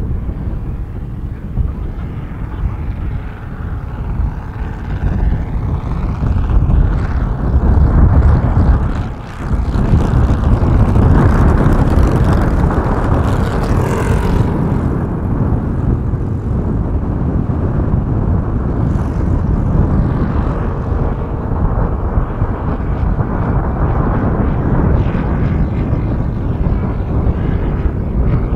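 Home-built 220 cc V4 four-stroke engine of a large radio-controlled model plane running in flight overhead, turning a three-blade propeller. Heavy wind buffeting on the microphone is mixed in. It dips briefly about nine seconds in and is louder after that.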